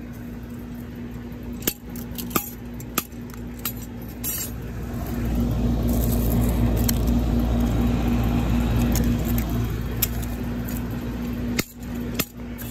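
A Samsung SGH-A837 flip phone being smashed on concrete: several sharp knocks and clinks of plastic and glass, with a louder low rumble swelling through the middle for about five seconds.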